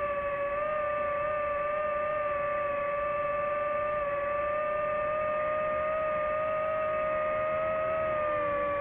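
DJI FPV drone's motors and propellers whining steadily in flight, the pitch holding nearly level and sagging slightly near the end.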